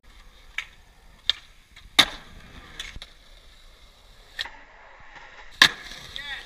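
Skateboards on concrete: a series of sharp clacks and knocks as boards pop and land, the loudest right at the start, about two seconds in and near the end, with wheels rolling on the concrete between them.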